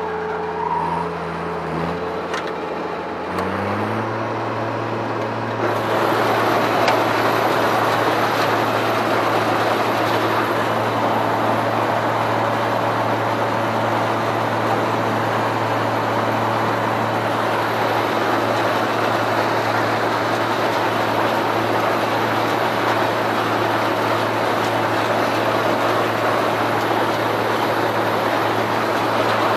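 Claas Mercator 75 combine harvester running; its engine rises in pitch about three seconds in. About six seconds in, a loud, even rushing noise joins and holds steady.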